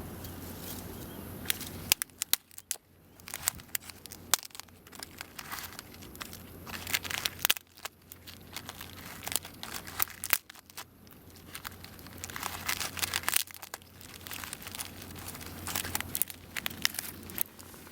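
Wood fire crackling and popping in a Solo Stove fire pit, with irregular sharp snaps coming in clusters.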